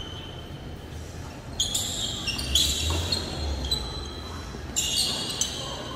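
Tennis rally: rackets striking the ball and the ball bouncing on the hard court, about five sharp hits starting about one and a half seconds in. Each hit echoes in a large hall.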